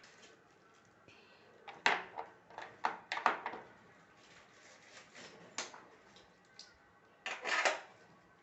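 Irregular knocks and short clattering of hard parts being handled and fitted while a Singer sewing machine is being installed. The loudest bursts come about two seconds in, around three seconds and near the end.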